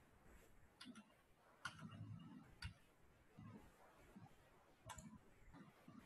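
A few faint, sharp computer mouse clicks at irregular intervals over quiet room tone.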